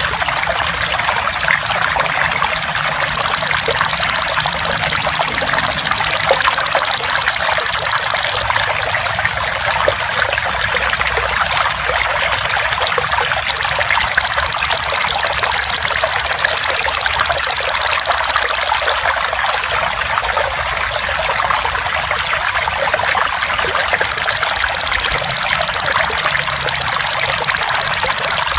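Water trickling steadily, with the loud, high-pitched, rapidly pulsing buzz of a belalang emas (golden grasshopper) coming in three times, each lasting about five seconds, roughly ten seconds apart.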